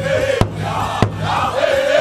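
Large powwow drum struck in unison by a group of singers with padded drumsticks: two heavy beats in the first half, about two thirds of a second apart. A group of male singers' voices chants loudly over and between the beats.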